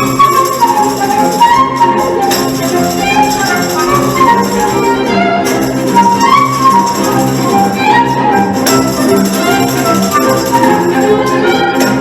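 Orchestral tarantella music: a quick, running melody over steady accompaniment, with tambourine jingles.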